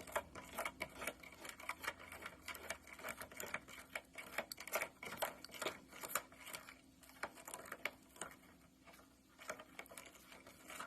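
A spoon stirring flour into cookie dough in a mixing bowl: quick, irregular taps and scrapes against the bowl, thinning out for a couple of seconds before picking up again near the end.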